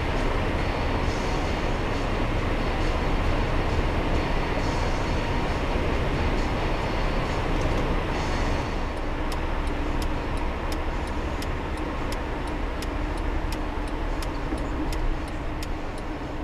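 Steady road and engine noise inside a car driving at speed, as picked up by a dashcam's microphone. About halfway through the sound changes, and a run of light, rapid ticks, about three a second, carries on to near the end.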